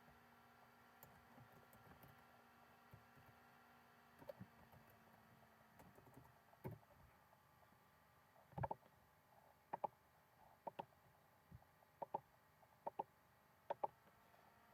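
A run of sharp clicks, mostly in close pairs about once a second, beginning about halfway in over a faint steady hum.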